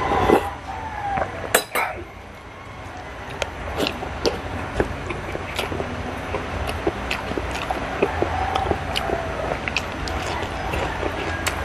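Close-miked eating: a spoon clinks sharply twice about a second and a half in, then there is chewing with many small crunches and lip smacks as crispy fried galunggong (round scad) and rice are eaten by hand.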